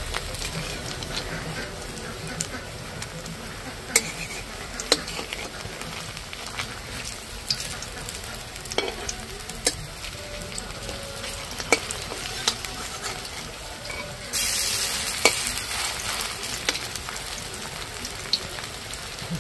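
Ash gourd leaf fritters frying in hot oil in a karai: a steady sizzle, with a metal spatula tapping and scraping the pan now and then. About fourteen seconds in, the sizzle suddenly grows louder and brighter for a couple of seconds, then settles.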